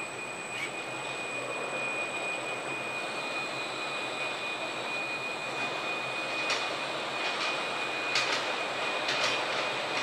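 Automatic rotary bottle-rinsing machine running: a steady noisy hum with a constant high whine, and a few sharp clinks in the second half.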